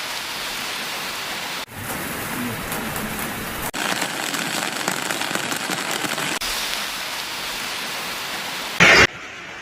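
Heavy rain falling in a steady hiss, broken by several abrupt changes of shot. Near the end comes a short, loud burst.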